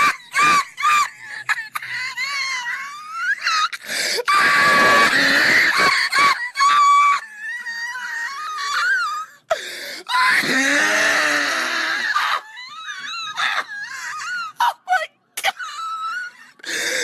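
High-pitched wailing and screaming voice, cries that slide up and down in pitch and break off again and again, with a lower moaning stretch about ten seconds in.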